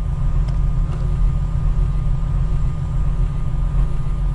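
Loud, steady deep rumbling drone with a faint thin high tone above it: the designed sound bed of a logo intro.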